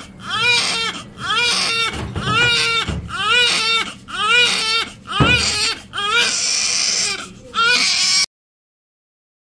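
Newborn baby crying in a string of short cries, about one a second. The crying cuts off suddenly near the end.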